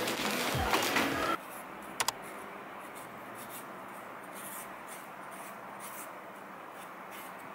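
Kitchen knife peeling a sweet potato: quiet, irregular scraping strokes as the blade shaves strips of skin off the tuber, with a sharp click about two seconds in. A louder noise from the scene before cuts off about a second and a half in.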